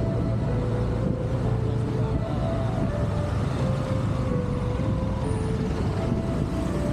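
Motor scooter riding along a street: a steady low rumble of the engine and wind on the microphone, with passing traffic.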